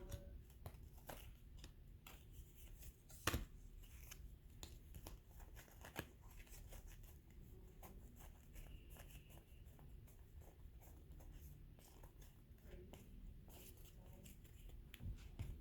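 Faint clicks and soft rustles of baseball trading cards being handled and flipped through one by one, with a sharper click about three seconds in and another about six seconds in.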